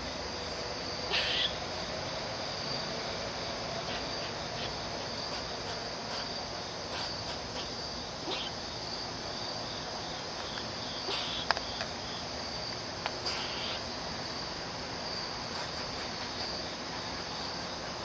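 An agitated squirrel giving a few short, sharp calls spaced several seconds apart, over a steady high-pitched insect drone.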